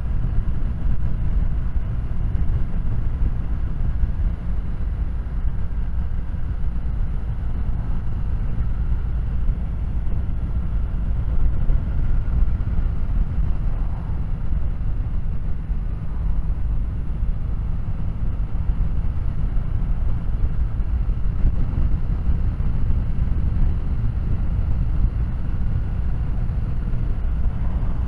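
Kawasaki W800's air-cooled parallel-twin engine running steadily while the motorcycle is ridden, heard over heavy low wind and road noise.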